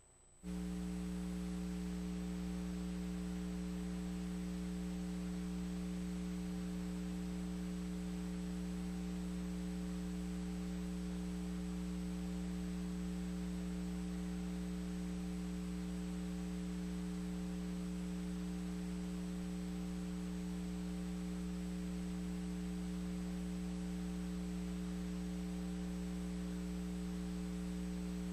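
Steady electrical mains hum: a buzzy stack of constant tones over a faint hiss, switching on abruptly about half a second in and not changing after that. No sound of the race itself is heard.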